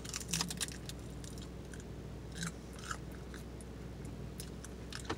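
Biting into and chewing a thin, crisp sheet of dried roasted seaweed: a quick run of faint crackles in the first second, then a few scattered crackles as the chewing goes on.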